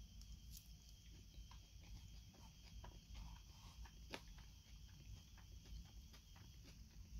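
Faint close-up chewing of salad: a scatter of small crisp crunches and mouth clicks over a low steady hum.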